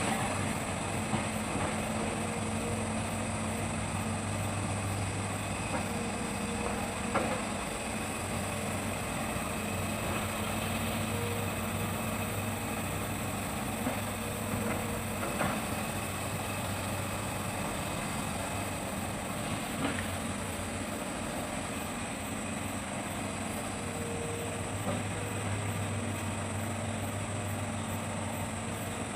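Hitachi excavator's diesel engine running steadily, its hum growing stronger and weaker every few seconds with the work, with a few short knocks.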